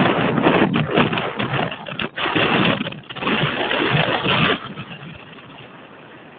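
Storm wind and choppy lake water: a loud, rough rush in uneven gusts that eases to a steadier, quieter hiss about four and a half seconds in.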